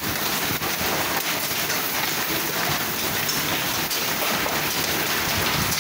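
Heavy hail and rain pelting down in a dense, steady hiss, with many small sharp clicks of hailstones striking.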